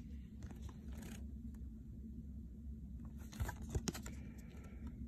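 Trading cards being handled: a few faint scrapes and clicks, the loudest cluster about three and a half seconds in, over a steady low hum.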